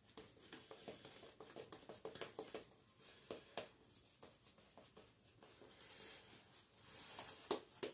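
Simpson Trafalgar T3 synthetic shaving brush working lather over the face: faint, quick scratchy brushing strokes with many soft ticks of bristles through the foam.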